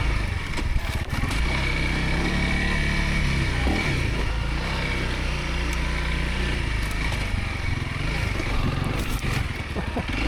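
Dual-sport motorcycle engine running steadily while riding a dirt trail, with a few short knocks or clicks along the way.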